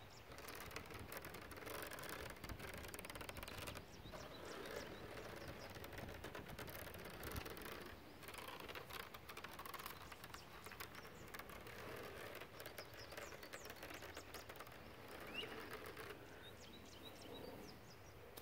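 Fingertips and nails scratching and rubbing on a trampoline's mesh safety net: soft, continuous scratchy texture with many small crackles. A few faint bird chirps sound now and then.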